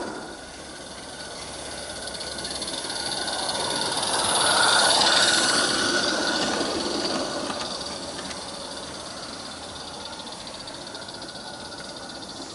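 Roundhouse Lady Anne live-steam garden-railway locomotive and its coach running past on the track, hissing steam. It grows louder to a peak about five seconds in as it passes close, then fades away.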